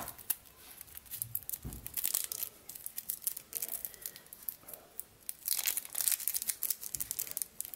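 Thin plastic film crinkling and crackling as the clear protective sheet of a small temporary tattoo is handled and peeled, with clusters of quick crackles about two seconds in and again near six seconds.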